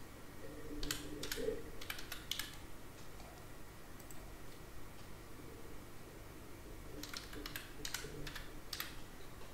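Computer keyboard keys being typed in two short runs of about half a dozen keystrokes each, the first about a second in and the second about seven seconds in, with a single faint click in between.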